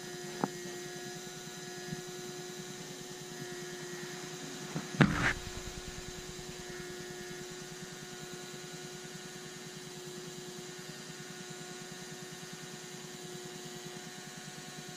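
Small electric motor and gearbox of a Walthers operating bascule bridge model running with a steady hum as the bridge leaf lowers. There is one sharp knock about five seconds in.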